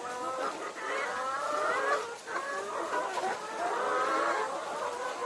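Several chickens calling and clucking at once, their wavering calls overlapping with hardly a break.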